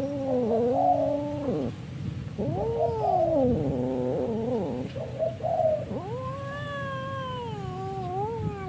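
Orange-and-white domestic cat yowling: a run of about four long, drawn-out, wavering calls with short breaks between them, the last one the longest.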